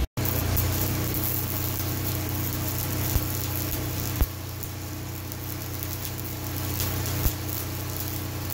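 Stick-welding arc crackling and hissing steadily over the steady running of a gasoline engine-driven welder, with a few short sharp pops.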